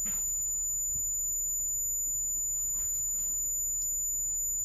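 Steady, very high-pitched 14,000 Hz sine test tone playing from a small speaker, serving as the signal of a homemade Doppler speed gun that bounces off a moving object.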